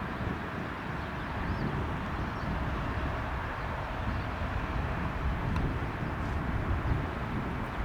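Steady rumble of a jet airliner's engines at a distance, the Airbus A320neo on or after its landing, with wind buffeting the microphone.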